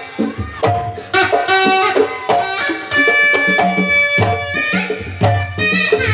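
Sundanese kendang pencak music: kendang drums playing quick, sharp strokes with deep low strokes about twice a second from about four seconds in, under the terompet, a shrill double-reed Sundanese trumpet, playing a melody of held, shifting notes.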